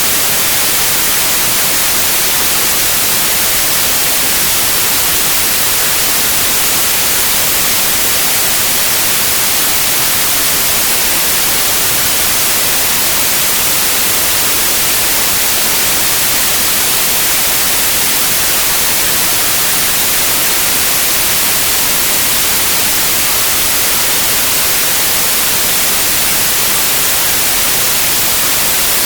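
White noise: a steady, even hiss, brightest in the high frequencies, unchanging throughout.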